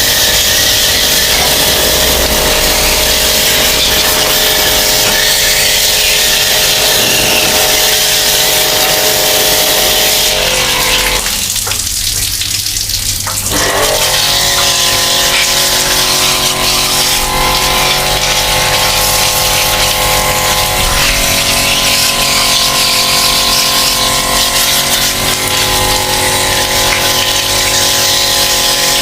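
Water spraying steadily with a machine humming under it. Both drop away briefly about eleven seconds in and resume a couple of seconds later.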